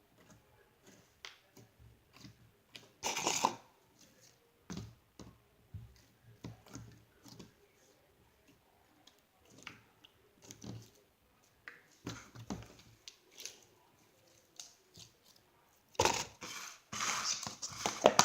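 Slime being squeezed and played with by hand, making scattered small sticky clicks and pops, with a louder burst about three seconds in and a denser run of louder squelching near the end.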